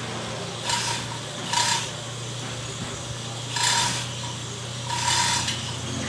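Engine hoist working to lift a car engine: short metallic rasping strokes, five of them one to two seconds apart, each opening with a brief ring, over a steady low hum.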